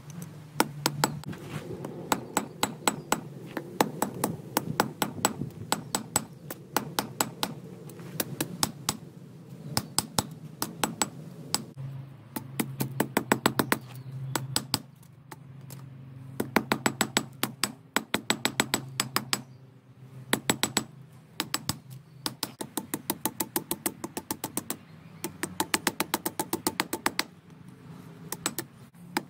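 Hand hammer striking red-hot steel held in tongs on an anvil, in rapid runs of several sharp blows a second with short pauses between runs. A low steady hum runs underneath.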